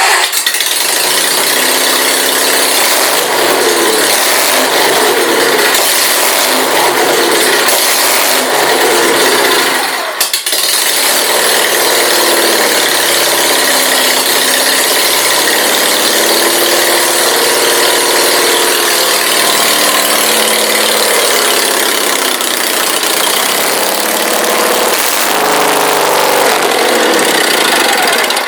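Sears SS16 garden tractor engine running loud through a straight-pipe exhaust just after a cold start. Its speed wavers up and down, with a brief dip about ten seconds in, while it is still cold and reluctant to warm up.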